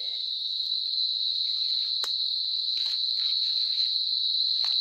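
Steady, high-pitched insect drone, an unbroken trill that holds one pitch throughout, with a few faint clicks and rustles over it.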